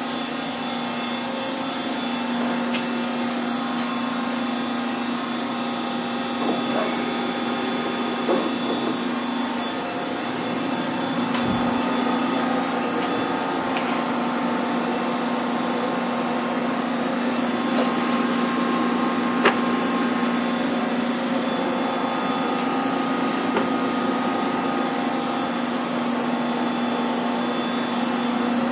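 Steady machine drone: a constant low hum with a whirring noise over it and a few faint clicks and knocks, the sharpest about two-thirds of the way through.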